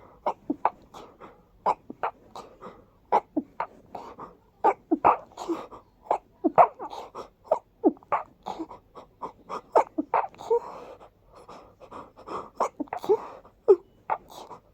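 A person sneezing over and over from allergies: a long run of short, breathy little sneezes in quick succession, about two a second.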